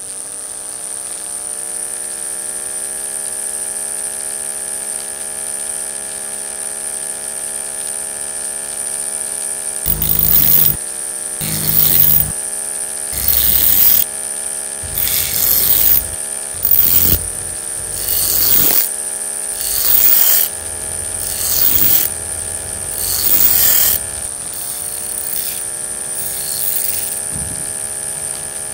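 Small toy DC motor running steadily with a high whine, driving a belt-driven sanding disc; it rises in pitch as it comes up to speed at the start. From about ten seconds in, a small sickle blade is pressed against the spinning disc about eleven times in short grinding strokes, sharpening the blade.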